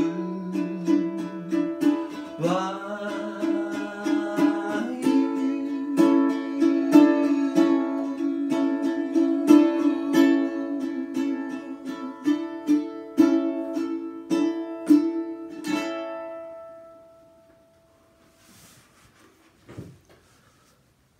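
Ukulele strumming the closing chords of a song, with a held sung note in the first few seconds. The last chord rings out and fades away about three-quarters of the way through, followed by near silence and one faint knock.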